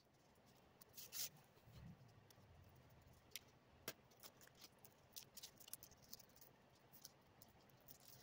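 Faint, scattered clicks and scrapes of a hobby knife working foam board on a cutting mat as score-cut pieces are picked and pried loose.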